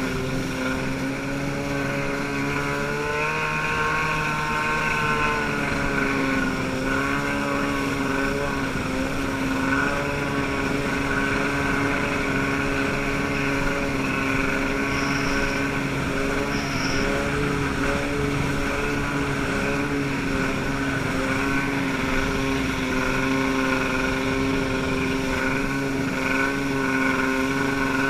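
Boat engine running at a steady speed, its note shifting briefly about four seconds in.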